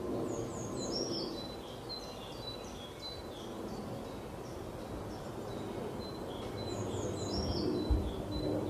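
Outdoor background of a small songbird singing: a quick run of short high descending notes about a second in and again near the end, with scattered single chirps between, over a steady low rumble. A brief low bump sounds just before the end.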